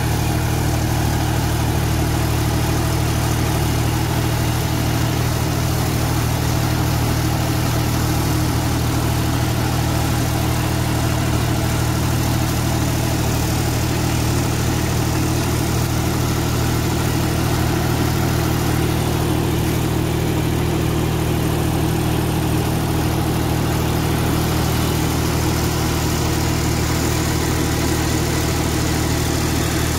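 John Deere 5310 tractor's three-cylinder diesel engine running steadily under load at full output, driving a rotavator that churns banana plant residue into the soil.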